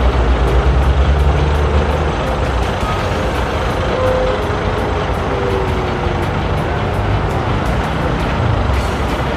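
Heavy diesel bus engine rumbling close by amid steady street traffic noise. The deep engine rumble is strongest for the first couple of seconds and then eases into the general traffic sound.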